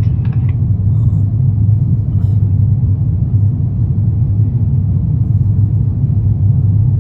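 Steady low rumble of cabin noise inside an Airbus A350-900 airliner, its Rolls-Royce Trent XWB engines and airflow running at a constant level.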